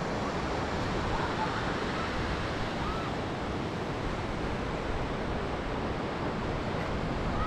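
River water rushing: a steady, even noise of the Kali river flowing.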